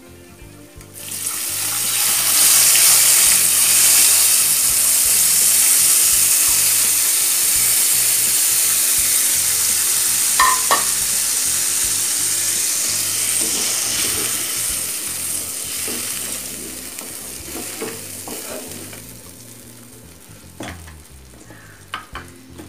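Tamarind water poured into hot sesame oil and tempering in a kadai, bursting into a loud sizzle about a second in that slowly dies down over the next fifteen seconds or so. A few light knocks come near the middle and near the end.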